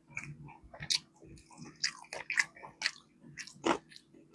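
A person chewing and biting into fried chicken up close: an irregular run of short crunches and mouth clicks.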